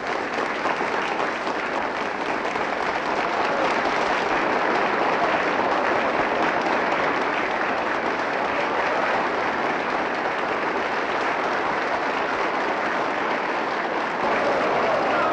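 Large theatre audience applauding in a steady, dense ovation, the crowd standing in the boxes and galleries.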